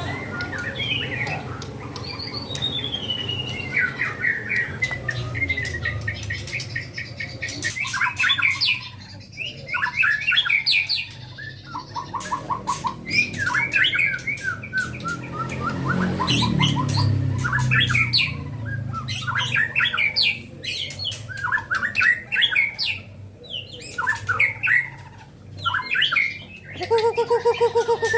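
White-rumped shama (murai batu) singing continuously: varied whistled phrases, short rapid trills and sharp clicking notes.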